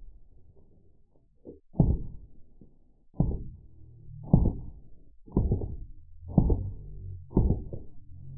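Slowed-down burst of shots from a Drozd Blackbird full-auto BB gun, heard as six deep, dull thumps about a second apart, each trailing off.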